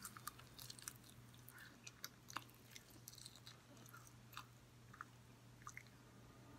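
Faint chewing and biting on a sauced chicken wing: scattered small clicks and smacks of the mouth.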